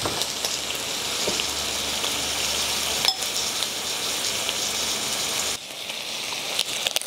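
Thin slices of beef brisket sizzling on a hot stone tabletop grill, a steady hiss, with a light click about three seconds in.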